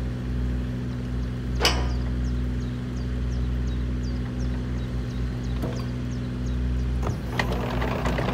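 JCB 65R-1 mini excavator's diesel engine running steadily while the hydraulic arm works the bucket, with a single sharp clunk about two seconds in. Near the end a rougher clatter joins the engine as the machine starts to travel on its tracks.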